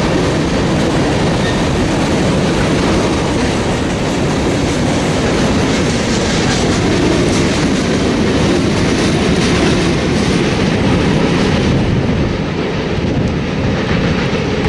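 Freight train cars rolling past close by: the steady noise of steel wheels on the rails as tank cars and covered hoppers go by, with the last car passing near the end.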